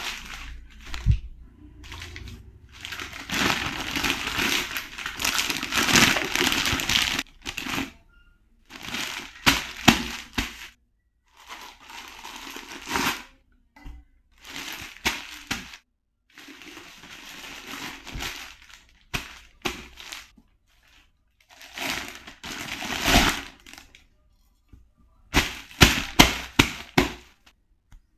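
Packaging and plastic parts being handled: rustling and crinkling with sharp clicks and knocks, in short spells that stop abruptly between silent gaps.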